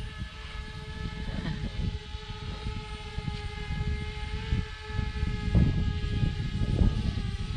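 Quadcopter drone's propellers giving off a steady whine of several held tones, with wind buffeting the microphone in gusts, strongest about two thirds of the way through.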